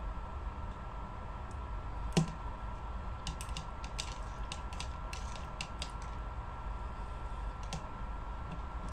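Scattered light clicks and taps over a steady hum, with one sharper knock about two seconds in.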